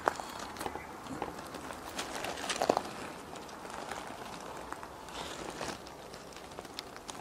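A rabbit moving about close to the microphone and hopping off over bark mulch and brick: light scattered taps, scrapes and rustles, with a louder cluster of clicks about two and a half seconds in.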